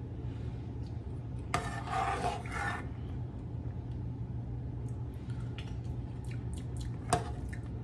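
Steady low hum of a kitchen with a steaming pot on the stove. About one and a half seconds in there is a short rushing noise lasting a little over a second, and a single sharp click comes near the end.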